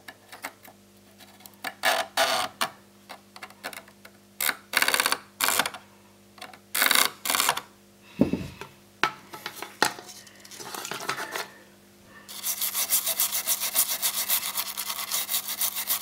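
Short, irregular scraping strokes as tweezer tips are drawn along the pins of a TV's LVDS connector socket to clean out dust. About three quarters of the way through, this gives way to fast, even scrubbing as a toothbrush is worked back and forth over the socket.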